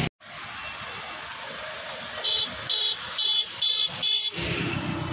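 Steady traffic noise, and about two seconds in a high-pitched horn beeps five times in quick succession, roughly two and a half beeps a second.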